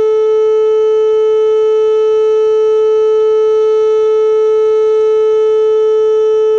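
Whelen WPS-2810 electronic outdoor warning siren sounding a loud steady tone, one held pitch with overtones that neither rises nor falls. This is the tornado warning signal being sounded during a siren test.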